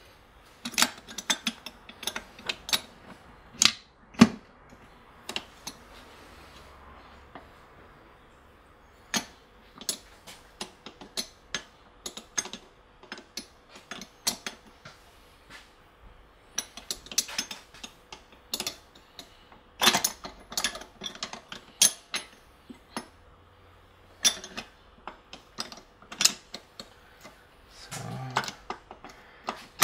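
Irregular metal clicks, clinks and knocks of a manual gearbox's gear shafts and shift forks being handled and worked into the aluminium gearbox case by hand.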